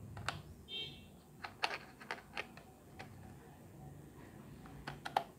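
Godox X1T-C flash trigger being mounted on a DSLR's hot shoe: a series of small, sharp plastic-and-metal clicks and taps as the foot slides into the shoe and is handled. A brief high-pitched tone sounds about a second in.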